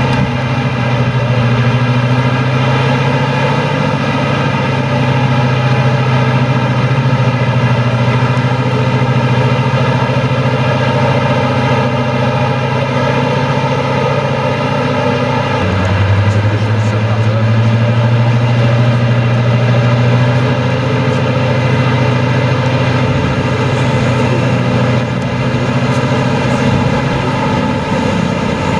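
Diesel locomotive engine running hard under steady power, loud and continuous, its note changing abruptly about halfway through to a slightly lower pitch.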